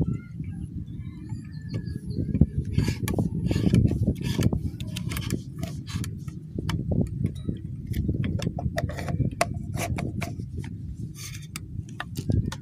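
Wind buffeting an outdoor microphone, a constant uneven low rumble, with rustling and clicking handling noise through most of the stretch and a few faint bird chirps in the first couple of seconds.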